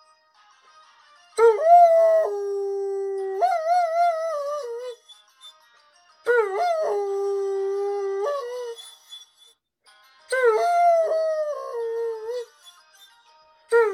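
Wolf-hybrid dog howling in three long, wavering bouts, its pitch sliding up and down within each, with short pauses between them.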